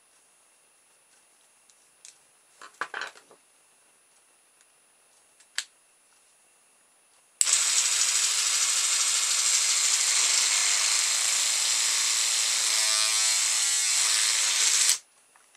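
A battery-powered oscillating electric toothbrush, with a plastic strip hot-glued into its bristles as a paddle, is switched on about halfway through and buzzes steadily for about seven seconds, then stops abruptly.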